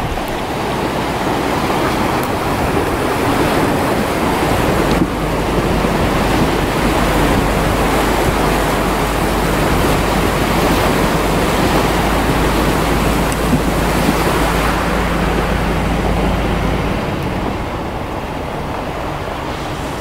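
Water rushing and splashing against a four-wheel-drive vehicle as it fords a shallow river, over the low steady drone of its engine. The noise eases off about three seconds before the end as the vehicle leaves the water onto gravel.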